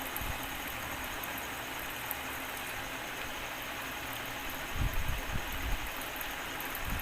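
Honda Shine motorcycle's single-cylinder engine running steadily in gear, driving a chain that jerks and slackens over a warped rear sprocket, with a few low thumps about five seconds in.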